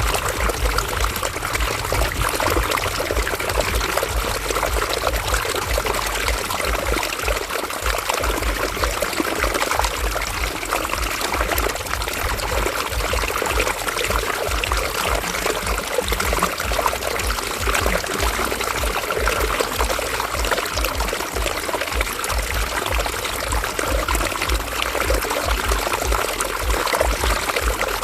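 River water flowing and splashing in a steady, even rush with a low rumble underneath.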